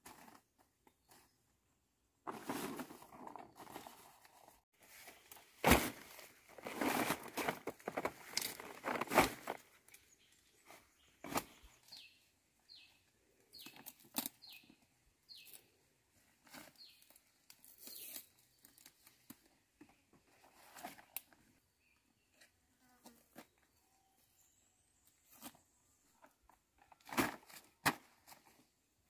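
Large dong leaves rustling and crackling as they are gathered and handled, with several sharp snaps or knocks among them. The handling is densest a few seconds in, then thins out to occasional rustles.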